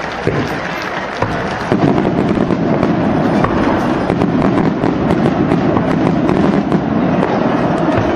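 A long string of firecrackers going off in a dense, rapid crackle that swells louder about two seconds in.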